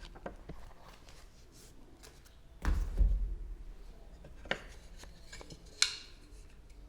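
Wooden pieces being handled: a heavy thump about two and a half seconds in, then two sharp knocks.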